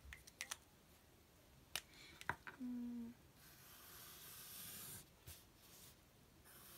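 Felt-tip Sharpie marker drawing strokes across paper: a soft hiss that starts about three and a half seconds in, lasts over a second and comes back near the end. A few light clicks come earlier, and a brief low hum about three seconds in is the loudest sound.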